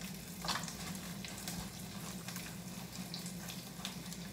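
Beyond Meat plant-based meat frying in a pan with a steady sizzle. A low steady hum runs underneath, and there are a couple of faint clicks about half a second and a second and a half in.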